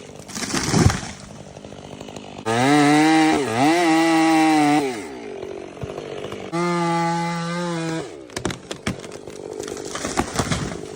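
Chainsaw engine run up to full throttle in two bursts with quieter spells between them; in the first burst the pitch dips and recovers as the chain bites into the wood. A few sharp knocks and cracks come near the end.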